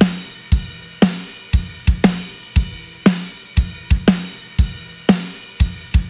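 Drum kit playing a 12-bar blues shuffle groove at 118 beats per minute: kick drum and snare alternate on the beats, about two strikes a second, with cymbals ringing over them. It is a drums-only backing track for practising walking bass lines.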